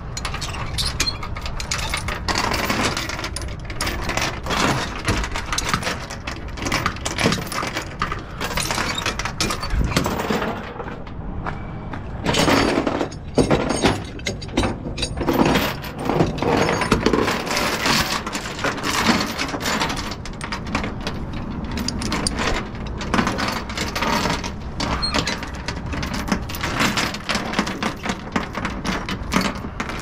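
Steel transport chain clinking and rattling, links knocking together and against a metal trailer deck, as it is pulled and hooked onto a lever chain binder by gloved hands. There is a brief lull about ten seconds in.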